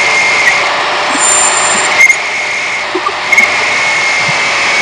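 Electric power tool running steadily with a high whine and hiss, the sort of work done when cutting slots in metal strips for a motor mount; the whine breaks off briefly twice.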